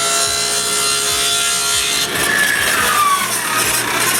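Power saw running, then ripping a thin strip of walnut from about two seconds in. The blade's pitch drops under the load of the cut and rises again near the end.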